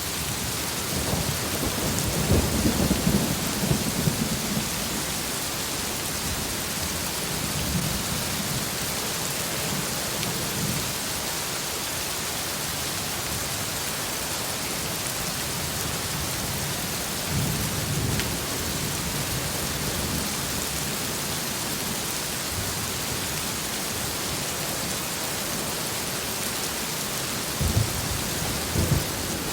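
Heavy rain falling steadily, with thunder rumbling low three times: near the start, about midway, and near the end.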